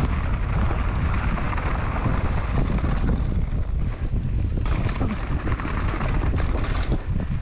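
Wind rushing over the microphone of a camera mounted on a mountain bike at speed. Under it, the knobby tyres roll on the dirt trail and the bike gives off frequent small knocks and rattles over the rough ground.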